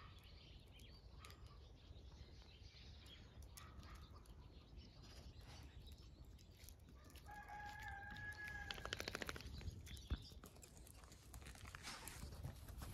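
Faint outdoor background with a rooster crowing once about seven seconds in: a held call lasting about a second and a half that ends in a short rattle.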